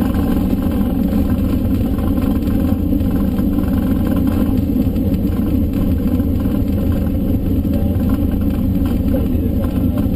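Cessna 152's four-cylinder Lycoming O-235 engine and propeller running steadily, heard from inside the cockpit.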